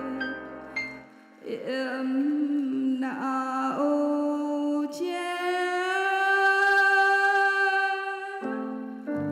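A woman singing the closing line of a slow Vietnamese ballad into a microphone. After the instrumental backing fades about a second in, her voice glides through a few notes and then holds one long note for about three seconds, rising slightly in pitch. Sustained instrumental chords come back in near the end.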